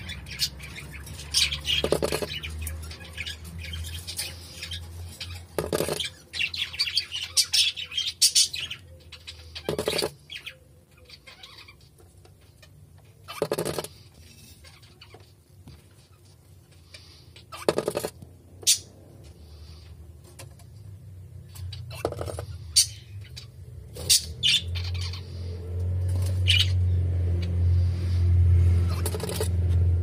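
Cockatiel in the nest giving short chirps and squawks every few seconds, busiest a few seconds in, over a low steady hum that grows louder near the end.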